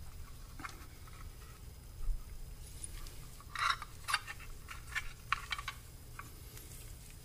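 Gloved hands handling small parts: a scattered run of short rustles and light clicks, with a cluster near the middle and several more about five seconds in.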